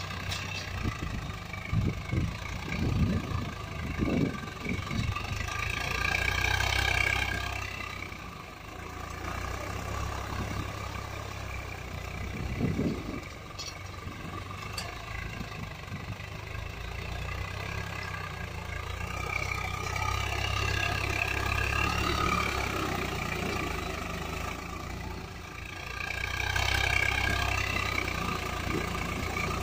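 Swaraj 744 FE tractor's three-cylinder diesel engine running steadily under load while it pulls a tillage implement through dry soil. The sound swells and fades a few times.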